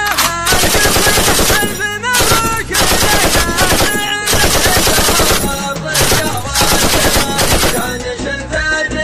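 Bursts of rapid automatic gunfire, fired in celebration of a wedding, over a sung melody with music; the firing stops about eight seconds in and the music carries on.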